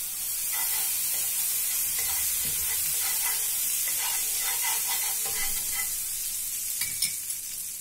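Butter melting and sizzling in a hot non-stick frying pan, a steel spoon scraping and stirring it around the pan in short strokes. The sizzle is steady throughout, and the scraping stops around two-thirds of the way through.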